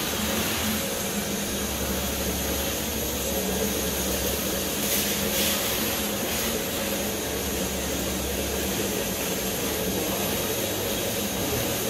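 Drum-type canister wet-and-dry vacuum cleaner running steadily, sucking along the floor: a constant rush of air with a steady motor hum underneath.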